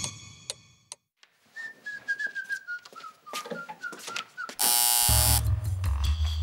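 A man whistling a short, wavering, descending tune, then about four and a half seconds in a loud harsh buzz breaks in and gives way to a strong low steady drone. A ringing chime fades out at the very start.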